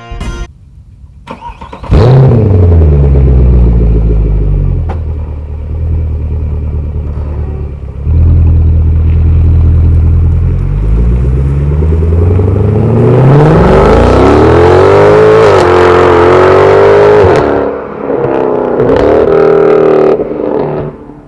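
Mercedes-Benz C63 AMG's 6.2-litre V8 with a Renntech secondary-cat-delete X-pipe exhaust, starting about two seconds in with a loud flare that settles to a lower, steady note. From about thirteen seconds the engine pitch climbs steadily, drops sharply, then climbs again before cutting off near the end.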